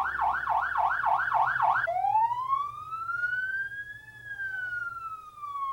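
Electronic siren on a rapid yelp, about four rises and falls a second. About two seconds in it switches to a slow wail that rises and then falls, over a faint steady low hum.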